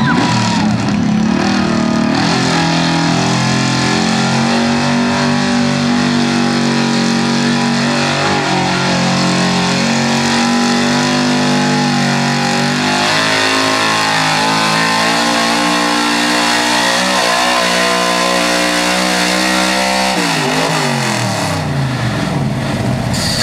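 Modified Chevrolet square-body 4x4 pickup's engine running hard at high revs under full load while pulling a weight-transfer sled, its pitch wavering in the middle of the run. Near the end the revs fall away steeply.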